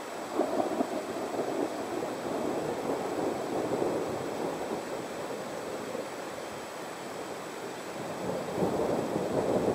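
Rolling thunder rumbling over a steady rushing noise, swelling just after the start and again near the end.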